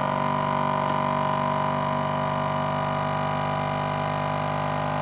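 Countertop vacuum sealer's pump running in canister mode, drawing the air out of a mason jar through a jar-sealer lid attachment to vacuum-seal the lid: a steady, even hum.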